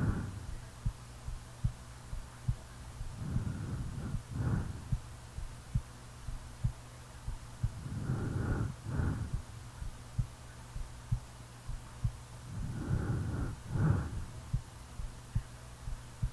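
A sleeping person's heartbeat, a steady low thump a little under a second apart, with slow, heavy snoring breaths every four to five seconds, each in two parts.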